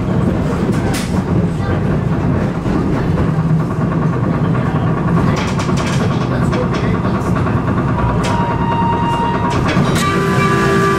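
Electric streetcar running along its rails: a steady rumble of motor and wheels with scattered clicks, and a steady high tone joining near the end.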